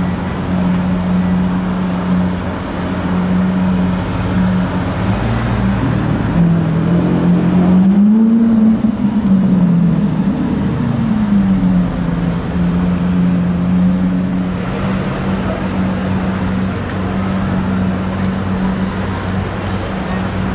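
Lamborghini supercar engine idling with a steady drone amid city traffic, its pitch rising and falling once about halfway through as the car pulls away.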